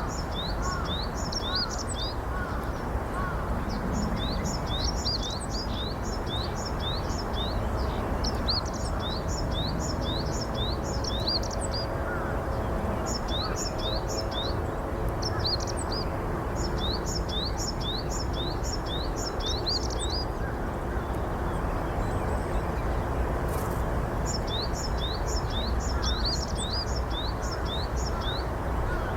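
Japanese tit singing its song: quick two-note phrases, each a high note dropping to a lower one, repeated in runs of several seconds with short pauses between. A steady low background noise runs underneath.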